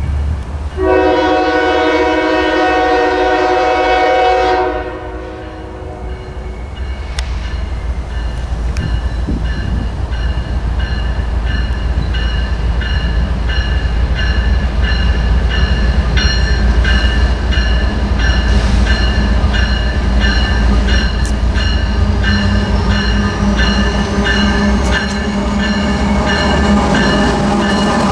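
CSX freight locomotive's multi-note air horn sounds one long blast of about four seconds, starting about a second in. After it, the train's low rumble builds steadily as the lead locomotive comes up to and into the station near the end.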